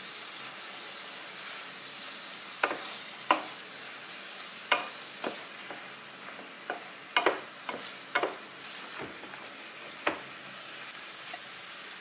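Tomato pieces sizzling in olive oil in a frying pan, a steady hiss. A wooden spatula knocks against the pan about a dozen times as they are stirred, from about three to ten seconds in.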